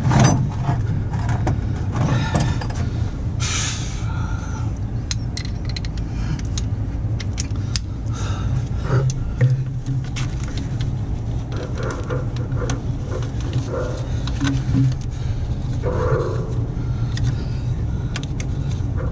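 Scattered light metallic clicks and clinks from hands and tools working the rebuilt starter's mounting bolts, over a steady low hum.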